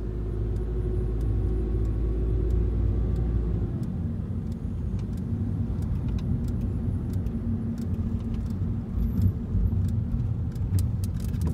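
Car driving, heard from inside the cabin: a steady low rumble of engine and tyre noise. A very deep drone underneath stops about four seconds in, and there are light rattling clicks near the end.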